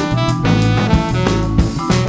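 Live jazz quartet playing: saxophone melody over electric bass and drum kit with cymbals, with vibraphone in the band.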